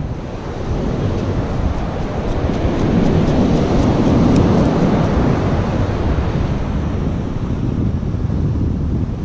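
Wind buffeting the microphone over the rush of heavy surf, swelling louder about three to five seconds in.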